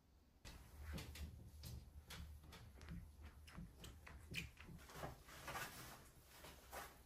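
Faint cleaning cloth wiping a smooth surface in quick, uneven rubbing strokes, starting about half a second in.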